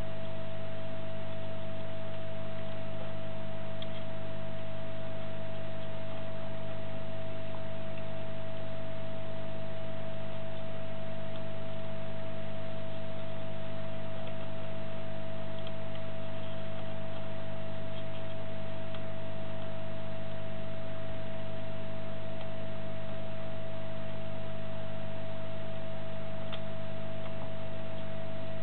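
Steady electrical hum with a constant whine above it and a few faint ticks.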